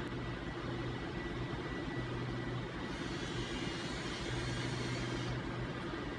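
Steady low mechanical hum of room background noise, with a soft hiss rising over it for about two seconds in the middle.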